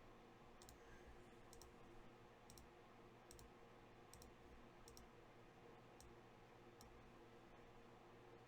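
Near silence: room tone with faint, sharp high clicks about once a second.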